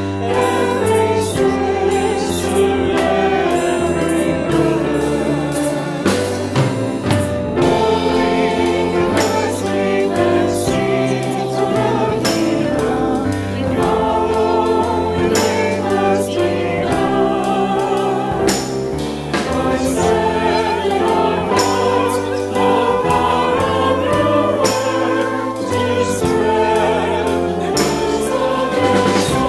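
A hymn sung by voices to keyboard accompaniment, steady and unbroken.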